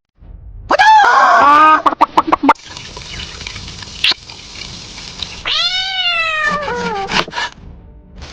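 AI-generated cat meowing twice, two long calls falling in pitch, each trailing off into a few short choppy sounds. A steady hiss runs underneath from about two and a half seconds in.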